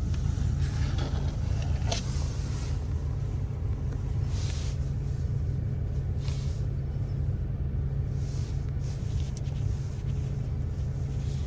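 Steady low rumble inside a Ford Focus cabin, with a few faint soft rubs or taps over it.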